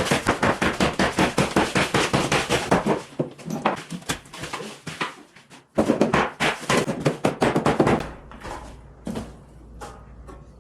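Wall demolition with a power tool: fast, even strokes, about eight a second, in two runs with a short pause between, then a few scattered softer knocks near the end.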